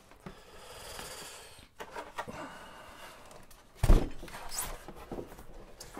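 Cardboard and styrofoam packaging rubbing and scraping as a heavy mini lathe is worked out of its box, with scattered small knocks and one dull thump about four seconds in.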